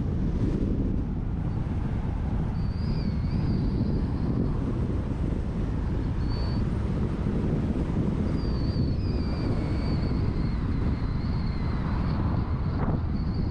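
Steady rumble of a car driving down a mountain road: engine, tyre and wind noise. A faint, high, wavering whistle comes and goes over it.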